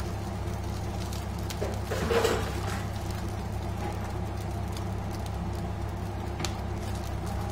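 A metal spatula scrapes and scoops fried rice from a wok onto a serving plate, one brief scrape about two seconds in, over a steady low kitchen hum.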